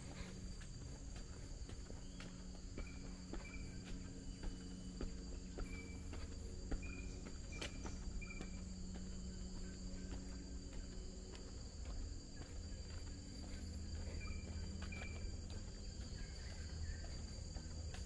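Forest insects droning steadily at a high pitch, with short high chirps repeating every second or so and faint footsteps on a path.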